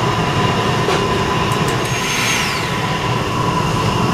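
Blender motor running steadily at one speed, puréeing cooked cauliflower with hot cream, with a few faint clicks about halfway.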